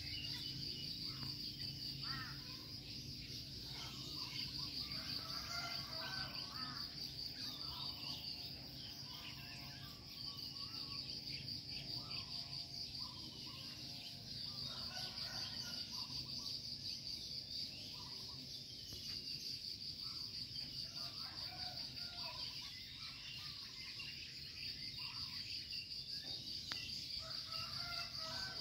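A steady, high insect trill, like crickets, runs throughout, with birds chirping and calling in scattered short notes over it.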